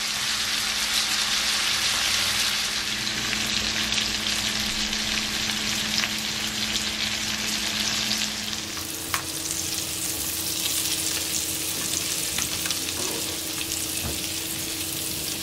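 Boiled small potatoes sizzling in melted butter and oil in a skillet, just sprinkled with lemon juice. The hiss eases and turns softer a little past halfway, and a few light spatula knocks follow as the potatoes are turned.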